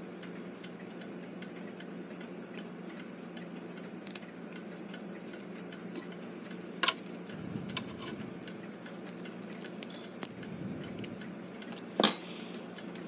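Small metallic clicks and taps from handling a brass clock movement as a thin wire spring is hooked back onto a strike lever. Scattered light clicks, with sharper ones about four, seven and twelve seconds in and a quick run of clicks around nine to ten seconds.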